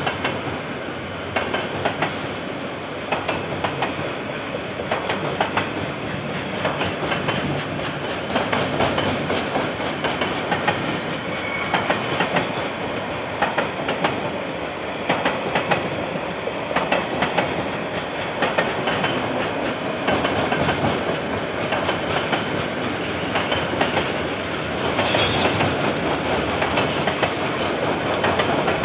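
Container freight train wagons rolling past, wheels clicking over the rail joints in repeated groups over a steady rolling rumble, heard through a security camera's microphone that dulls the top end.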